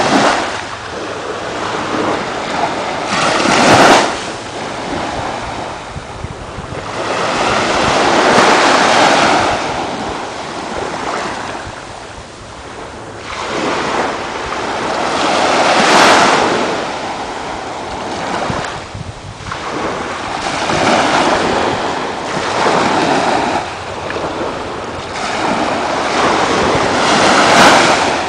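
Ocean surf washing onto a beach, a steady hiss that swells and fades about five times as small waves break.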